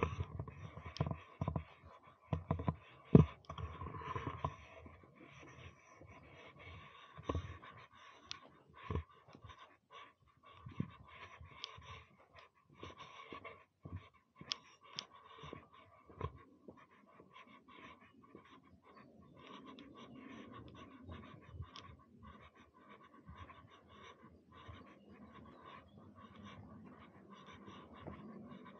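Footsteps on a grass and dirt path with handling knocks from a hand-held camera: irregular soft thumps and clicks, busier in the first several seconds, over faint outdoor background.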